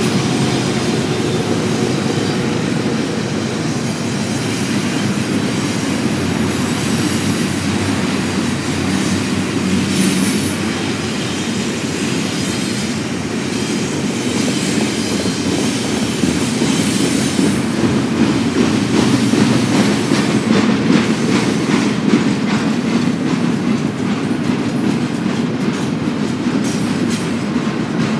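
Cars of a BNSF intermodal stack train rolling past, a steady rumble of wheels on rail with rapid clickety-clack that grows more prominent about halfway through.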